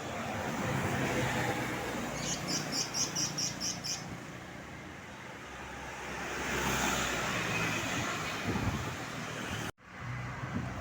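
Roadside traffic noise, with a vehicle passing by in the middle. About two seconds in, a quick run of about eight high chirps, four or five a second, sounds over it, and near the end the sound cuts out for an instant.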